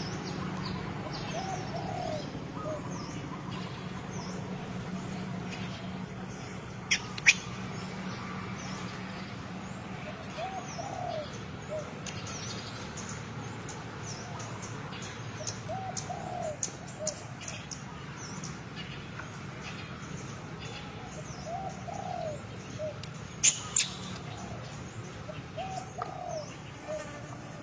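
Birds calling: a low cooing phrase repeated about every five seconds, with thin high chirps between. Two pairs of sharp clicks, one about a quarter of the way in and one near the end, are the loudest sounds.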